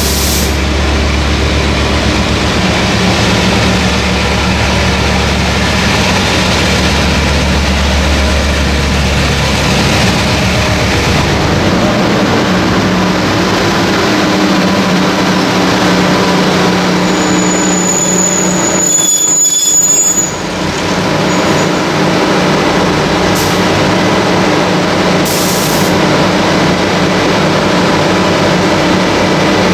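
TRA diesel-electric locomotive R133 departing with a Chu-Kuang express train, its engine working hard as it passes close by, then the coaches rolling past on the rails. A thin high squeal comes in briefly about two-thirds of the way through.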